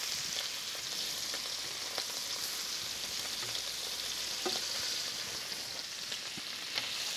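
Fresh scallops searing in hot butter in a pan: a steady sizzle with a few faint pops.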